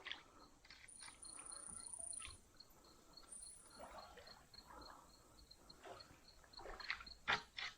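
A cricket chirping in a steady, even rhythm of about three to four high chirps a second. A few sharp knocks and rustles come near the end.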